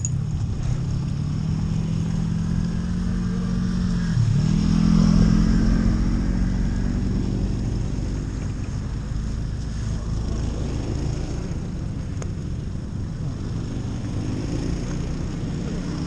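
Snowmobile engines running. About four seconds in, one engine's pitch dips and climbs again, loudest just after, then the sound settles to a steady low rumble.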